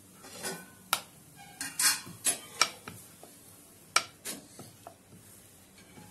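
Wooden rolling pin rolling out paratha dough on a round steel rolling board, with irregular sharp knocks and clatters as the pin and board strike against metal.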